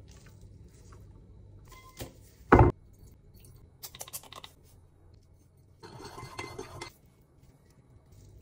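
Kitchen dishes and utensils being handled during food preparation. A light clink comes first, then a single loud knock against a hard surface, a few small clicks, and about a second of scraping or rustling.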